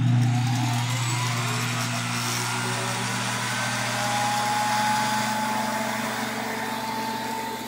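1920 TUEC central vacuum's electric motor and blower running just after being switched on: a steady low hum with a thin whine that slowly rises in pitch as it comes up to speed.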